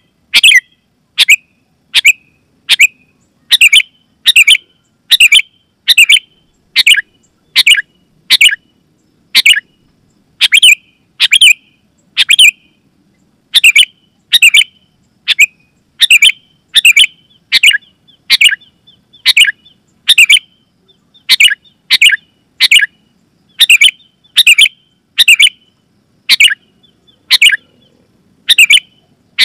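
Sooty-headed bulbul (kutilang) calling loudly and without pause: a steady string of short, sharp chirping notes, about one to two a second, some coming in quick pairs.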